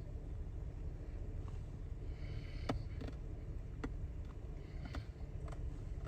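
Steady low rumble of a vehicle driving, heard from inside the cab, with a few light clicks and knocks.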